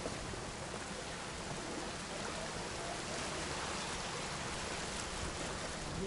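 Small sea waves washing up onto a pebble beach: a steady hiss of surf over the stones.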